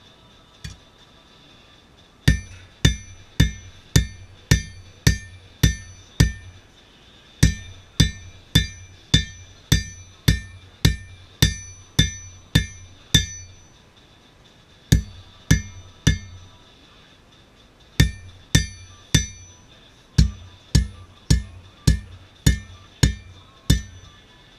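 Hand hammer striking a steel anvil, about two blows a second in several runs with short pauses between them, each blow ringing with a clear metallic tone.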